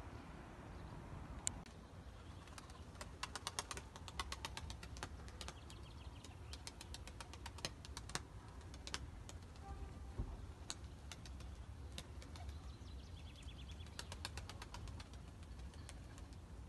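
Faint outdoor ambience: a low steady rumble with several runs of rapid, sharp clicks and a few single clicks.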